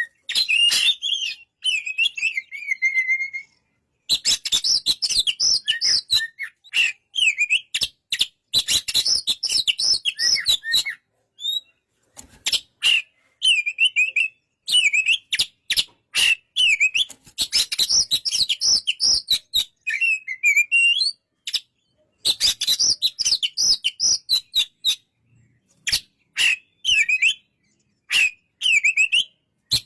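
Oriental magpie-robin (kacer) singing: quick, varied phrases of rising and falling whistled notes mixed with raspy clicks, in bursts broken by short pauses.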